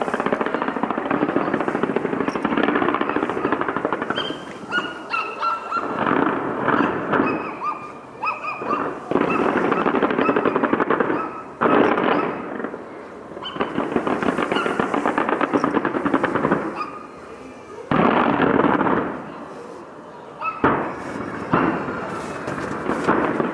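Fireworks crackling: dense, rapid popping in bursts a few seconds long, with short lulls between them.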